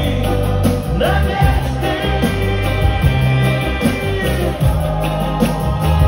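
Live pop-rock band playing a song: drum kit, bass and guitar, steady and loud, with regular drum hits.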